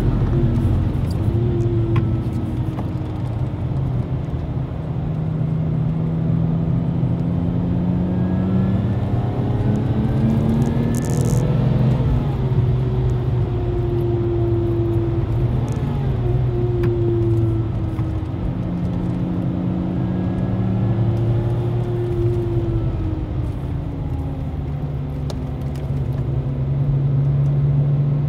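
The Lexus IS200's supercharged (TTE Kompressor) straight-six, heard from inside the cabin, pulling up through the revs, dropping sharply when the driver lifts about twelve seconds in, then climbing and falling again as the car is driven through the bends of a race track.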